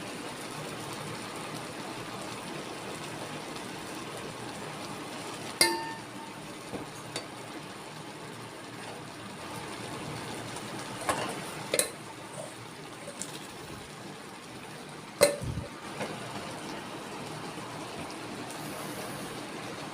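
Kitchen cooking sounds: a steady hiss, with several sharp clinks of utensils against pots or dishes. The loudest clinks come about six seconds in, twice around twelve seconds, and again around fifteen seconds.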